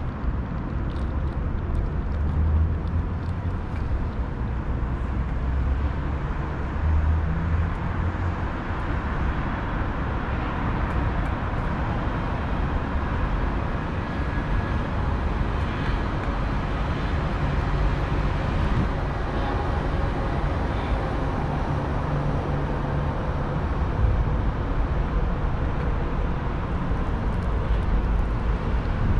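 Steady rumble of city road traffic.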